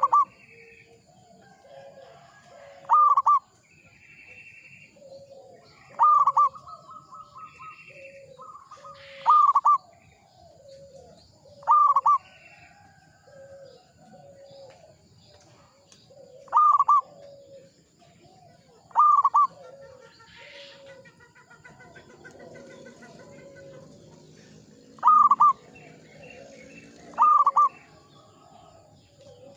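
Zebra dove (perkutut) cooing in repeated phrases: a loud, short, doubled note comes back every two to three seconds over a run of softer, lower coos.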